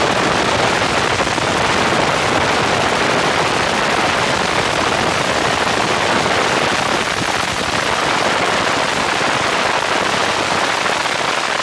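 Steady, loud rush of wind on the microphone of a camera mounted outside a doors-off helicopter in flight, with the helicopter's rotor and engine noise mixed in.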